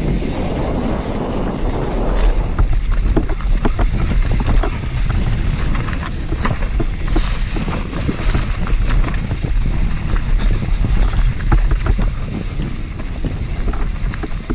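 Mountain bike descending a dirt trail at speed: tyres rumbling over dirt and leaves and the bike rattling and clattering over bumps, with wind buffeting the action camera's microphone.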